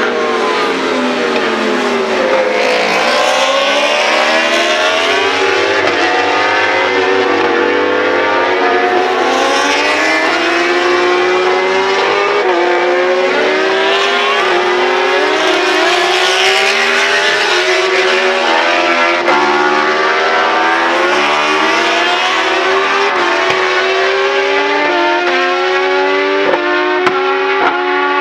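Several World Superbike racing motorcycles at full throttle, their engines overlapping. The pitch falls at first, then climbs again and again in steps as the bikes change up through the gears and accelerate away.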